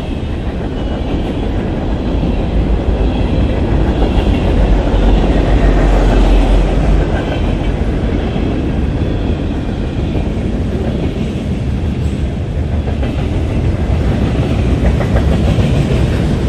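Freight cars of a CSX manifest train rolling past close by: a steady, loud rumble of steel wheels on rail.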